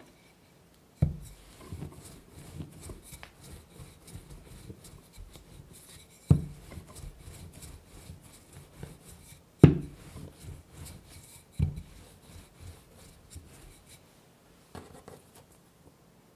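Wooden rolling pin rolling out laminated pie dough on a bamboo cutting board: a soft rolling rumble and rubbing, broken by four sharp knocks of the pin on the board. Near the end, a faint rustle as the dough is lifted and folded.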